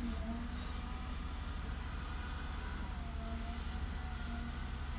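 Diesel engines of a crawler excavator and a dump truck running during coal loading: a steady low rumble, with the engine pitch drifting slightly up and down.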